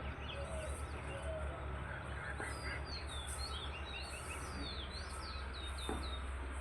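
Many small birds chirping together, a dense run of short, quick, falling chirps, over a steady low rumble.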